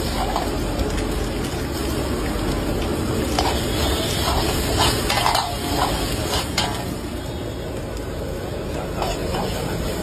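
Metal ladle scraping and clinking against a steel wok as eggs are stir-fried. The clinks are most frequent in the middle, over a steady background hiss.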